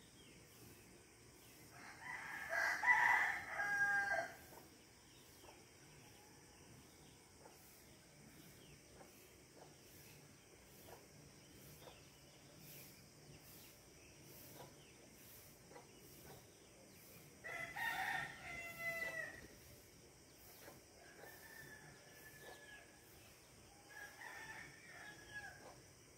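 A rooster crowing, loudly about two seconds in and again past the middle, with fainter crows near the end, over a steady high hiss of night insects.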